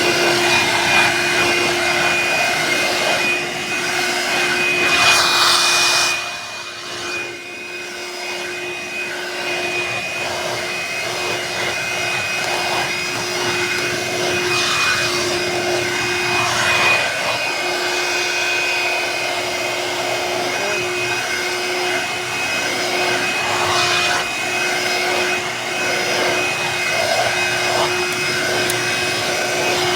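Black & Decker Automotive Power Brush hand vacuum running steadily with a constant motor whine while vacuuming stairs. The suction and brush noise rises and falls as it is worked over the steps, dipping briefly about six seconds in.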